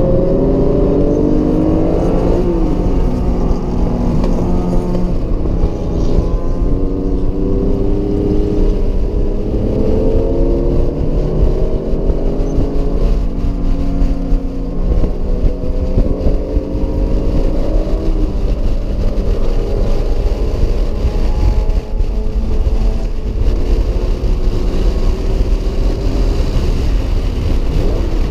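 Acura NSX's mid-mounted V6 engine under hard acceleration on a race track, heard from inside the cabin: its pitch climbs for a few seconds, drops at each gear change and climbs again, several times over, above a steady low road rumble.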